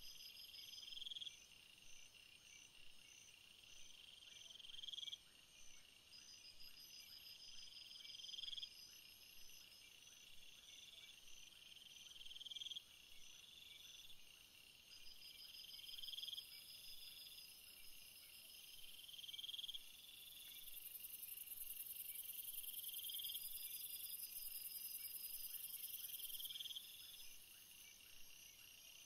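Faint night chorus of crickets and other insects, with a short call that rises in pitch repeated about every three and a half seconds. A thin, very high buzz joins about two-thirds of the way in and stops a few seconds before the end.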